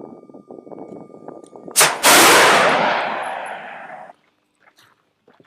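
FIM-92 Stinger missile fired from a shoulder launcher: a sharp crack as the launch motor kicks it out of the tube, then a split second later the flight motor ignites with a loud rushing roar that fades over about two seconds as the missile flies away. Before the shot a faint steady tone sounds over rustling.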